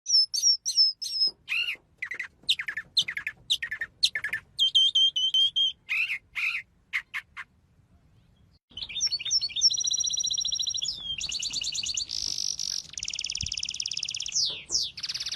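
Songbirds singing: a series of short, sweeping chirps and whistled calls, a pause of about a second just past the middle, then fast, buzzy trills that go on steadily.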